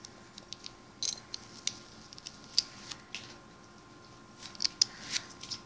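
Light, irregular clicks and taps of small plastic toy pieces being handled and fitted together, with a quick cluster of sharper clicks near the end.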